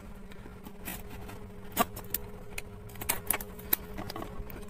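Cardboard smartphone box being handled and opened: scattered light clicks and scrapes of the packaging, over a steady low hum.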